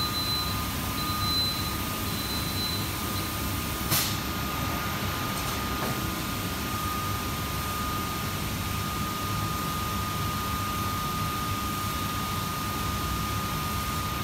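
Steady machinery drone and hiss with a constant high whine, from the dip tank's equipment or the shop's ventilation. Three short high beeps sound in the first few seconds, and a single sharp click comes about four seconds in.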